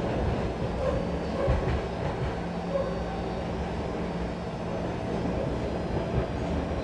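Interior noise of a BART C-stock rapid transit car running along the track: a steady low rumble of wheels on rail with a faint steady hum underneath.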